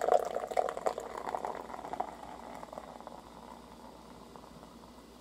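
Carbonated Surge soda poured from a can into a glass, splashing and fizzing. The pour is loudest over the first two seconds, then thins to a quieter fizz that fades away.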